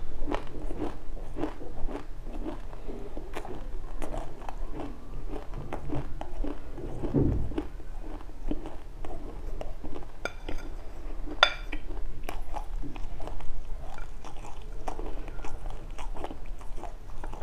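Close-mic chewing of a mouthful of dry seeds (sesame, passion fruit and anise seeds): dense, irregular crisp crunches and crackles, with one low thud about seven seconds in and one sharper crack about eleven seconds in.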